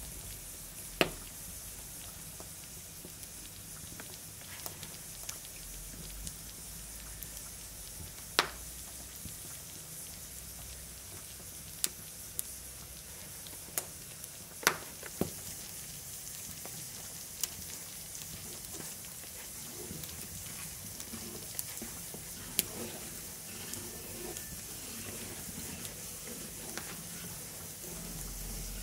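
Sauce simmering in a copper pan over wood embers: a steady sizzling hiss with scattered sharp pops and crackles.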